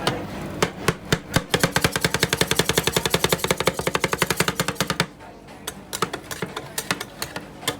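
Metal spatulas chopping rapidly on the cold steel plate of a rolled-ice-cream griddle, a fast even clatter of about eight strokes a second, breaking off about five seconds in to slower, scattered taps.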